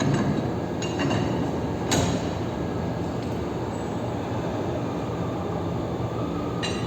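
Sharp metal-on-metal clanks, each ringing briefly: three in the first two seconds and one just before the end. They sound over a steady low machine hum while roller coaster wheel assemblies are being worked on.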